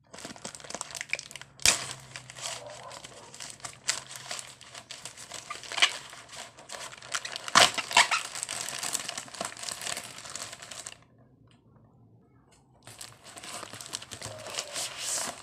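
Plastic shipping bag crinkling and crackling with sharp snaps as it is pulled off a cardboard box. It stops for about two seconds near the end, then starts again.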